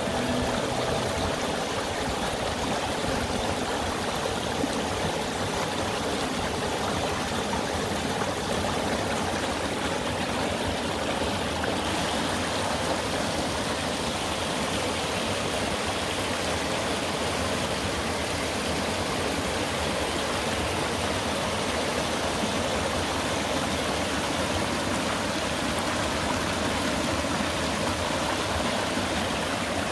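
Mountain-valley stream flowing steadily.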